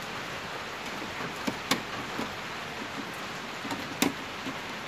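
Steady hiss of light rain falling, with a few small clicks and taps from hands working on the TV panel's frame; the two sharpest clicks come about a second and a half and about four seconds in.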